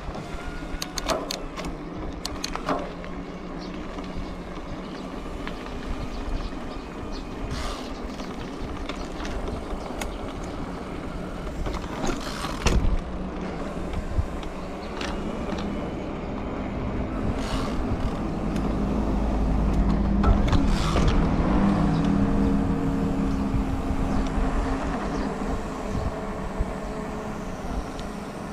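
Wind and rolling noise while riding, with scattered clicks and knocks, and a motor vehicle's engine passing, swelling to its loudest about twenty seconds in and then fading.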